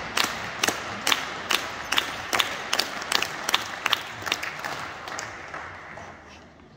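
Applause from a small crowd, a few sharp individual claps standing out at about two to three a second, dying away near the end.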